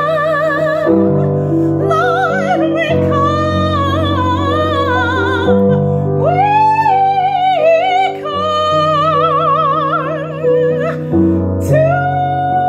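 A woman singing long held and sliding notes with a wide vibrato, in a full soulful-classical voice, over sustained piano chords that change every second or two.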